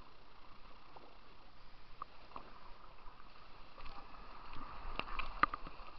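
Kayak paddle strokes dipping and splashing in river water over a steady rush of moving water, with a cluster of sharp splashes and knocks near the end.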